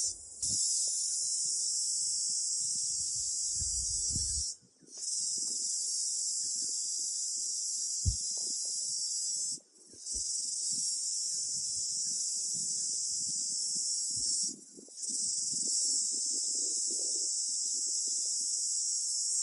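A chorus of cicadas buzzing loudly and steadily in a high, hissing pitch. The buzz cuts out briefly and comes back about every five seconds. A single sharp click sounds about eight seconds in.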